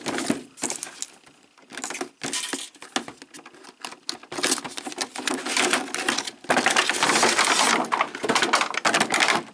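Cardboard-and-plastic action-figure window box being opened by hand: scattered scrapes and clicks, then denser rustling and crinkling for the last three seconds.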